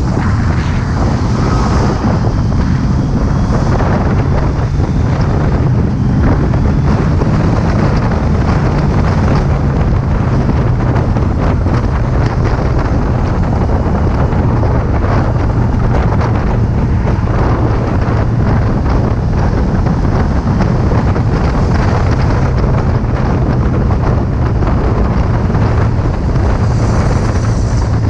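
Kawasaki Z800's inline-four engine running at a steady pitch while riding, with heavy wind noise buffeting the bike-mounted GoPro's microphone.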